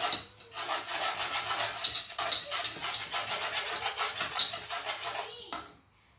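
Wire whisk stirred rapidly round a metal saucepan, scraping and rattling through hot salt as rice is roasted in it to puff into muri. The quick scratchy strokes run for about five seconds, with a couple of sharper clicks, then stop abruptly.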